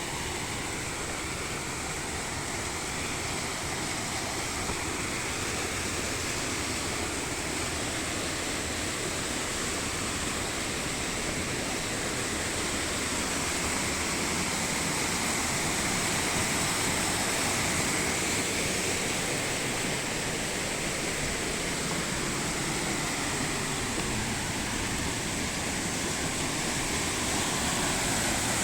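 Waterfall on a mountain stream: a steady rush of falling water, slowly growing a little louder.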